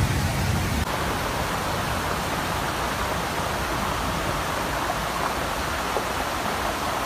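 Steady rush of flowing floodwater, an even, unbroken roar of water.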